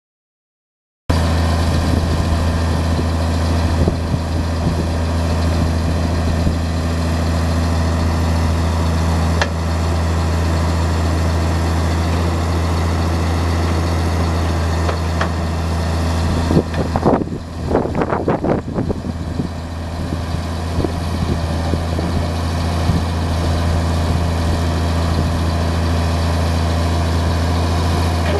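White Field Boss 2-135 tractor's eight-cylinder diesel engine idling steadily. About two-thirds of the way through, a few seconds of uneven, fluttering noise break into the sound.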